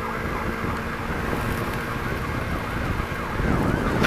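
Ambulance siren in its emergency mode: a fast yelp whose pitch sweeps rapidly up and down, repeating continuously over road noise.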